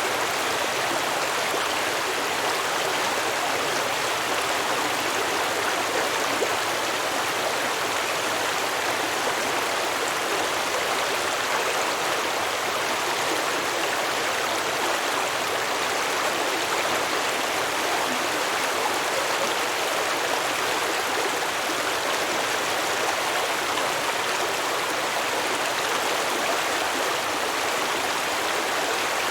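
A stream flowing and babbling over rocks, a steady, even rush of water.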